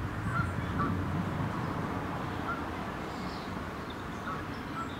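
Outdoor park ambience: a steady low background rumble with a few short distant bird calls, and faint higher chirps near the middle.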